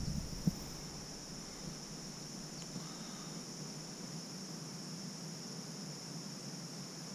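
Steady high-pitched chirring of crickets in an insect chorus, with two brief knocks in the first half second.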